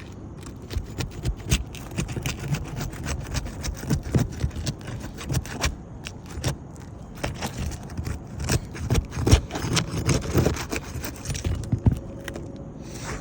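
Metal roofing tool prying and scraping under asphalt shingles: a dense, irregular run of sharp clicks and scrapes as the stuck shingle is worked loose.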